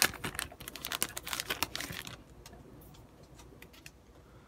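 Foil trading-card pack wrapper crinkling and crackling as it is torn open, dying away about two seconds in, followed by a few faint clicks of the cards being handled.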